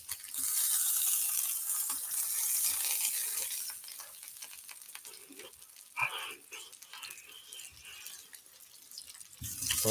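Pork belly strips sizzling on an electric grill pan, loudest for the first few seconds and then settling to a quieter sizzle.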